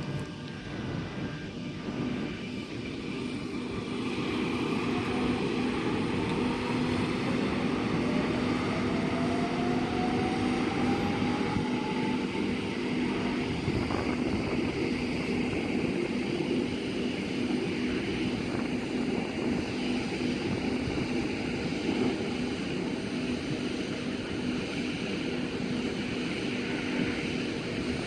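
Electric passenger train running past, its steady hum joined by a whine that rises slowly in pitch over about ten seconds as the traction motors gather speed.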